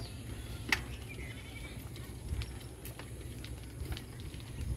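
Outdoor wind rumbling on a handheld phone microphone, with a few sharp clicks and a brief high call about a second in.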